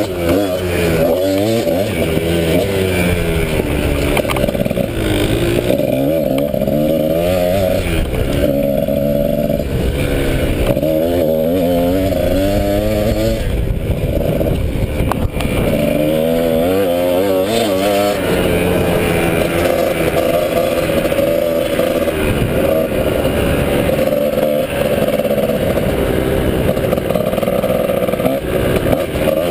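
Dirt bike engine under way on a woods trail, its pitch rising and falling again and again as the rider accelerates, shifts and backs off.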